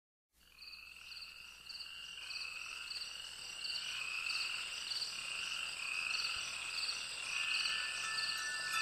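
Night ambience of crickets chirping, fading in, with short high chirps repeating about every half second over a steady high drone.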